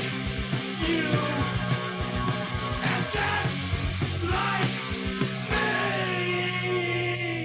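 Early-1980s punk rock recording playing: a full band with drums, bass and guitar.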